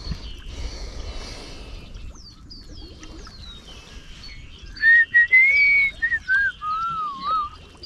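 A person whistling a short wavering tune, loud and clear, starting about five seconds in, over many small birds chirping throughout.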